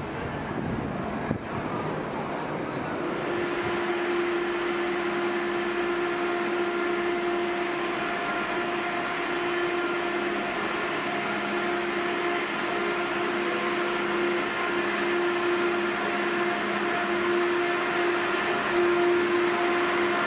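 For the first few seconds, the even rolling noise of a train drawn by a DB Class 101 electric locomotive. Then an ICE electric multiple unit pulls slowly in alongside the platform with a steady electric hum of several fixed tones, growing a little louder as it comes closer.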